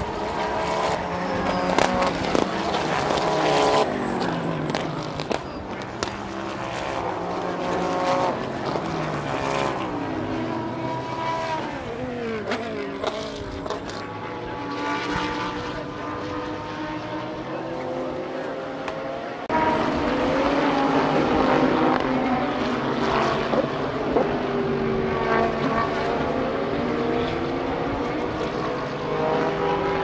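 Several GT race cars passing in a pack, their engines revving up and down through the gears so that many engine notes overlap, rising and falling in pitch. Sharp cracks punctuate the first half, and about two-thirds in the sound jumps suddenly louder.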